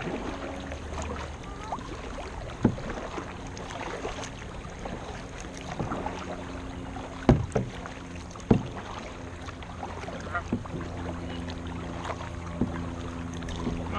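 Kayak paddling on a river, with a few sharp knocks, the loudest two about a second apart a little past the middle, over a steady low hum.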